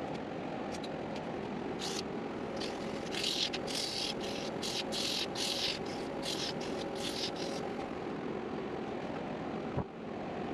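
Wood lathe motor running with a steady hum, while sandpaper pressed against the spinning cedar workpiece gives a run of about ten short hissing strokes in the middle. A single knock comes near the end.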